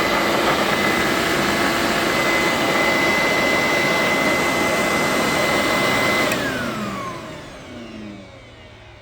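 Hoover SteamVac Gold carpet cleaner's suction motor running with a steady high whine. About six seconds in it is switched off with a click, and the whine falls as the motor spins down. The owner takes the motor to be burnt out.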